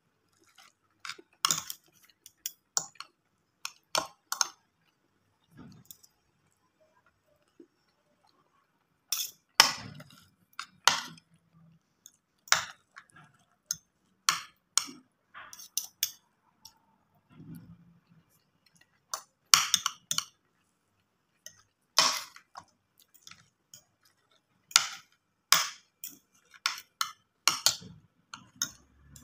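Metal spoon and fork clinking and scraping against a plate while eating rice and a burger patty, in irregular sharp clinks with short pauses between.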